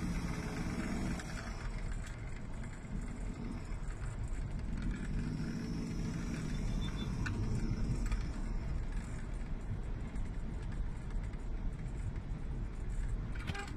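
Hyundai Grand Starex D4CB diesel van engine running while the van is driven, with steady road noise and the engine note shifting a little. There is a sharp click near the end.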